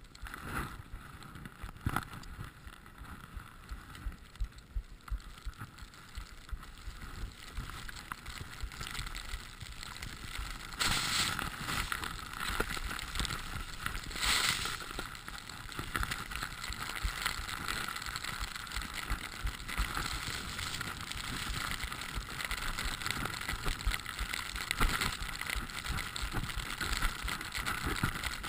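Skis running through deep powder snow, with wind rushing over a GoPro's microphone: a steady rushing hiss with uneven low knocks, growing louder after the first several seconds, with two brief louder surges near the middle.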